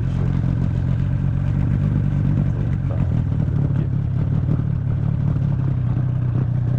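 Yamaha 30 two-stroke outboard motor with a jet unit running at a steady speed.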